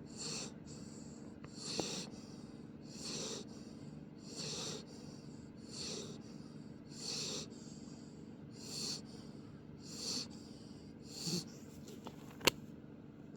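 Pit bull puppy snoring in its sleep, one breath about every second and a half. A single sharp click near the end.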